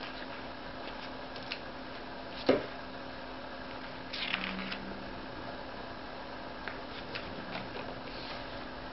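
Pages of a large hardcover book being turned by hand: a sharp tap about two and a half seconds in, then a papery rustle of a page turning about four seconds in, with a few light paper ticks over a steady hiss.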